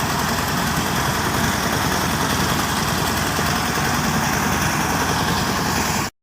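Diesel-engined rice threshing machine running steadily: the engine's even pulsing under a constant rush of threshing noise, cut off abruptly near the end.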